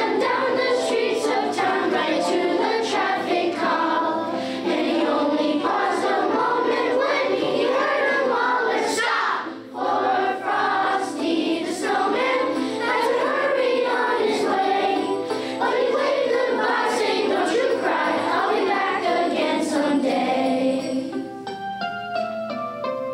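Children's choir singing a Christmas song with musical accompaniment. Near the end the voices stop and a short run of instrumental notes plays out.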